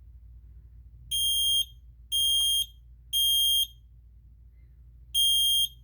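Kidde i1040 smoke alarm sounding its test alarm in the temporal-three pattern: three loud, high-pitched beeps about a second apart, a pause, then the next round beginning near the end.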